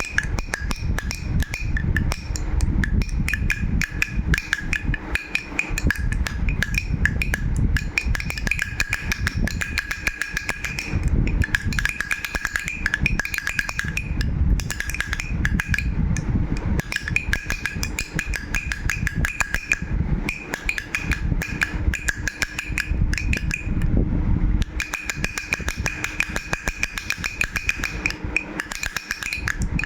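Baby rattle shaken continuously, a fast unbroken clatter of small clicks, with a steady high ringing running through most of it.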